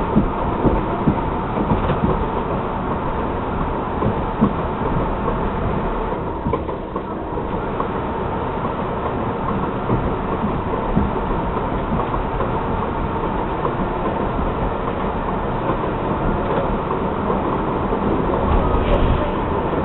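R62A subway train running on the track, heard from inside the front car: steady rumble of wheels on rail with frequent clicks over the rail joints and a faint steady high tone.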